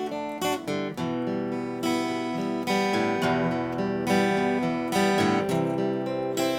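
Music: an acoustic guitar strumming chords.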